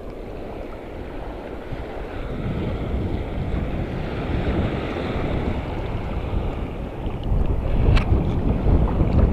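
Wind buffeting the microphone over sea water washing around the rocks, a low rumble that grows louder toward the end. A single sharp click about eight seconds in.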